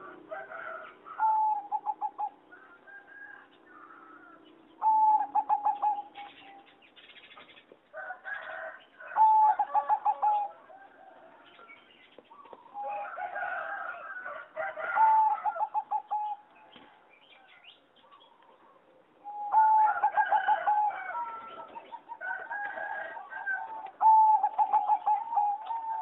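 Zebra doves singing: phrases of rapid, stuttering coos, repeated with pauses of a few seconds between, the last stretch running on unbroken for about six seconds.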